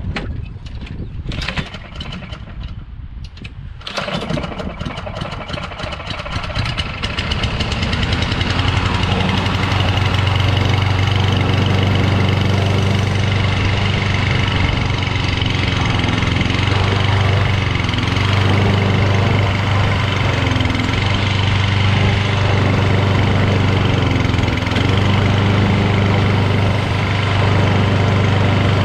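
Lawn-Boy Insight mower's Kohler XT7 single-cylinder engine being pull-started. It cranks in a series of strokes and catches about four seconds in. It then builds up and settles into a steady run.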